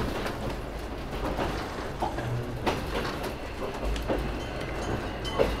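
Old passenger coach running on the rails, heard from inside the carriage: a steady rumble and rattle with scattered knocks from the wheels. A thin high ringing tone comes in just at the end.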